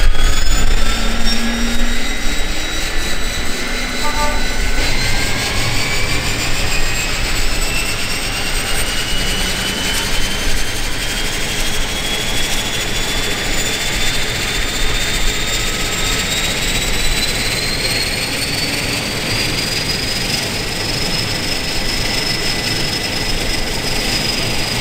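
Pratt & Whitney PT6A turboprop of a Lancair Evolution spooling up after engine start, its turbine whine rising steadily in pitch for about twenty seconds and then levelling off at idle, over the low drone of the turning propeller.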